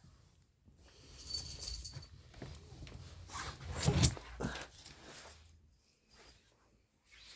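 Pet cat making a run of irregular, bird-like vocal sounds, loudest about four seconds in.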